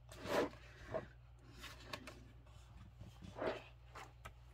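Coloring book pages being turned: two louder paper swishes about three seconds apart, with light rustles and ticks of paper between them.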